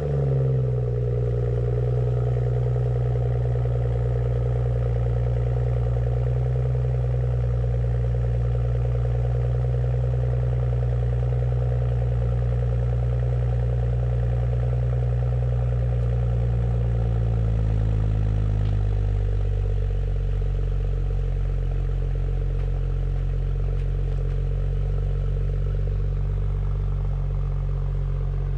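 BMW F30 335i's N55 turbocharged inline-six idling just after being started, at a raised idle that drops to a lower, steady idle about 18 seconds in.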